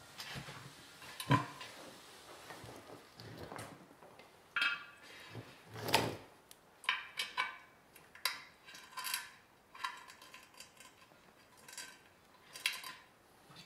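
Scattered clinks, knocks and short scrapes as a tyre on a polished metal wheel is handled and an air hose chuck is worked onto the valve stem, with a brief louder rush about six seconds in.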